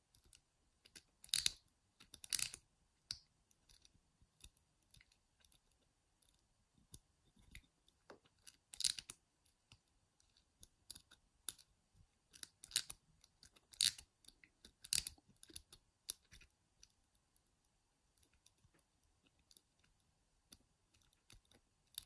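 Wire lock pick scratching and clicking against the levers inside a small Squire 220 lever padlock while it is held under light tension and picked. Scattered faint scrapes and sharp clicks, a few louder ones about a second in and again in the middle.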